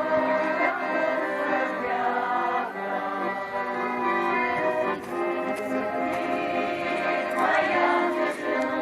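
A folk choir's song with accordion accompaniment: steady held accordion chords with voices singing over them.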